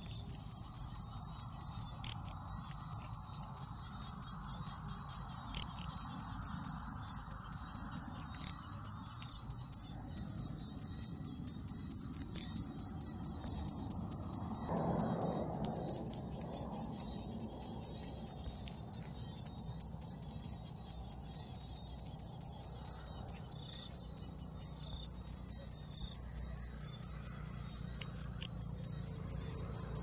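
A cricket chirping steadily in a fast, even, high-pitched pulse that never lets up. About halfway through there is a brief soft rustle underneath it.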